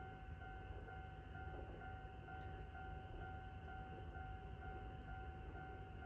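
Electric-bell level crossing alarm ringing faintly: a steady two-pitch ringing tone that pulses about twice a second, over a low rumble.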